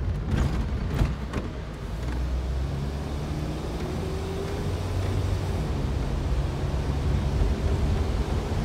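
Car driving along, a steady rumble of engine and road noise heard from inside the cabin, with a few sharp knocks in the first second and a half.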